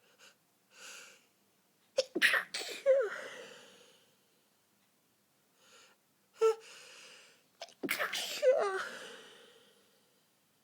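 A person forcefully stifling sneezes. Short catching breaths lead into a stifled sneeze about two seconds in, made of several sharp spasms that fade out. More catching breaths follow, then a second forceful stifled sneeze near the end.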